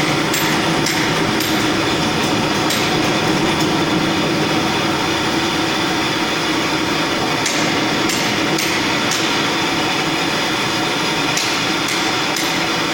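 Spina TD 550 triple-head concrete floor grinder running on a concrete floor. It makes a steady, dense grinding noise over a hum, with scattered sharp ticks.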